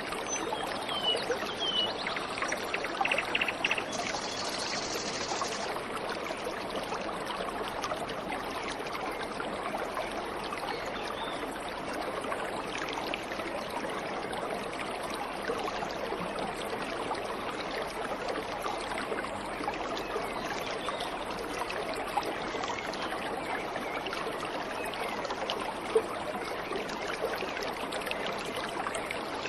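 Waterfall water rushing and splashing steadily, with a few high bird chirps and a short buzzy trill in the first few seconds.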